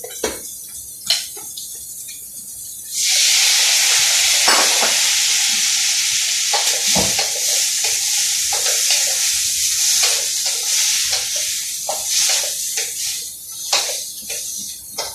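Food frying in a hot pan. About three seconds in a steady sizzle starts suddenly, as when ingredients are added to hot oil, and it goes on with the knocks and scrapes of a utensil stirring in the pan.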